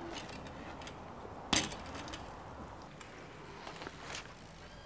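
BMX bike riding on a concrete skatepark ramp: one sharp knock about one and a half seconds in, then a few light clicks near the end.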